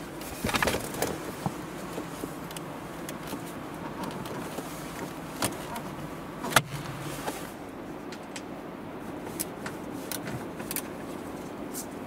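Handling noises of plastic car interior parts and wiring: scattered light clicks and rustles, a short cluster of small knocks about half a second in, and one sharp click about six and a half seconds in.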